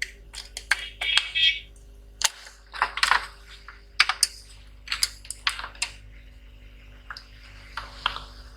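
Irregular light clicks and taps of small hard objects being handled on a repair bench, a dozen or so at uneven spacing, over a faint steady hum.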